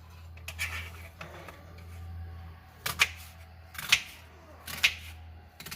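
Knife chopping an onion on a cutting board: softer cuts near the start, then four sharp chops about a second apart in the second half, over a faint low hum.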